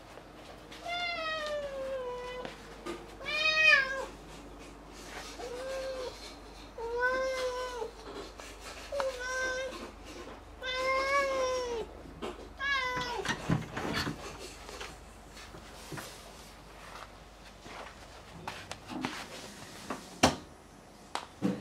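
British Shorthair cat meowing about seven times, each call rising and falling in pitch, the first one long. These are followed by scattered knocks and clicks, one of them sharp, near the end.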